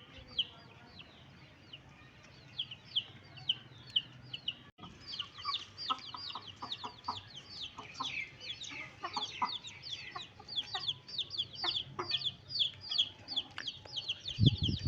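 Chicks peeping: a steady stream of short, high, falling cheeps, several a second, getting busier about six seconds in.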